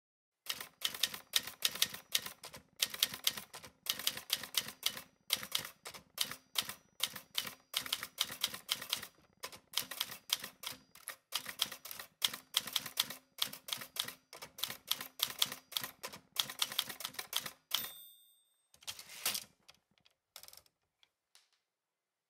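Manual typewriter typing in quick runs of keystrokes. Near the end its bell dings once, followed by a few more clacks.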